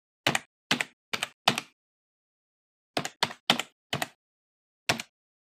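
Computer keystrokes, one sharp clack per letter as text is typed: four quick keystrokes, a pause of about a second, four more, then a single one near the end.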